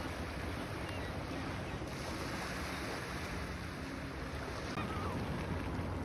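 Small Lake Ontario waves washing onto the shore in a steady rush, with wind rumbling on the microphone. A few faint gull calls sound over it.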